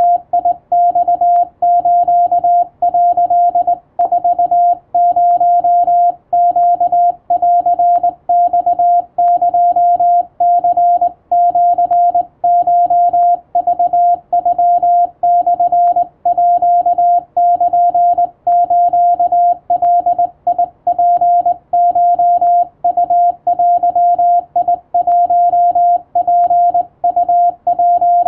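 Japanese Wabun Morse code sent by hand on a straight key, heard as a single steady mid-pitched tone keyed on and off in short dots and longer dashes, with gaps between characters.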